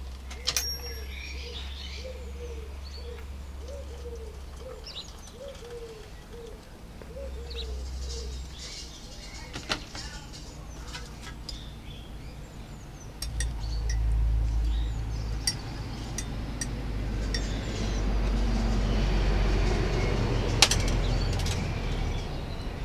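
Pigeons cooing, a run of about a dozen low coos over the first several seconds, with scattered clinks and knocks of crockery. About halfway through, a louder low rumble sets in and runs under the rest.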